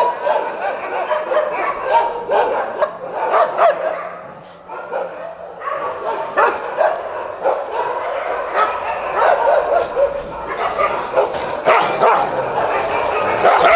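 Many caged dogs barking at once in dense, overlapping barks, with a brief lull about four seconds in.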